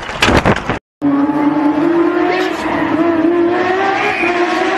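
Clatter of a bicycle crash on the road, cut off abruptly within the first second. Then a rally car's engine running at high, steady revs, its pitch rising slightly as the car comes on.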